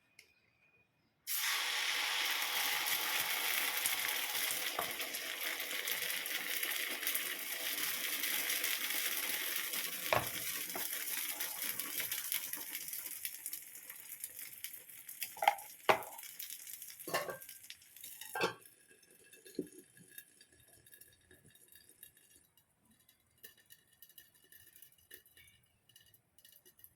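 Dosa batter sizzling on a hot surface. The hiss starts suddenly about a second in, holds steady, then fades out over several seconds. A few sharp knocks of a utensil against the pan come midway and near where the sizzle dies away.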